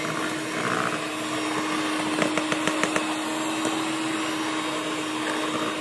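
Electric hand mixer running steadily, its beaters turning in thick butter sponge cake batter in a stainless steel bowl, with a quick run of small clicks about two seconds in.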